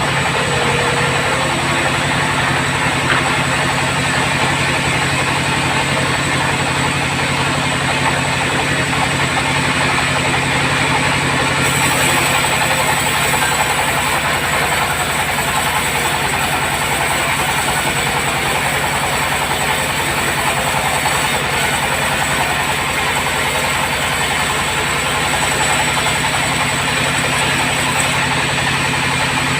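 Band sawmill running steadily while working acacia logs, its drive and blade giving a constant mechanical drone with a hiss above it that brightens a little about twelve seconds in.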